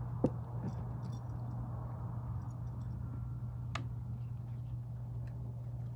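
Small faint clicks and ticks of hand tools on a snowblower carburetor being taken apart to remove its pilot jet, with one sharper click about two-thirds of the way through, over a steady low hum.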